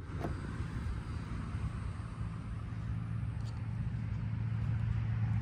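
A low, steady engine hum that grows gradually louder.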